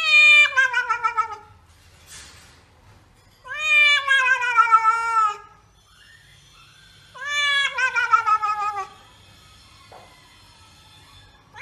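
A cat yowling in distress while being bathed: three long, wavering wails, each sliding down in pitch, a couple of seconds apart.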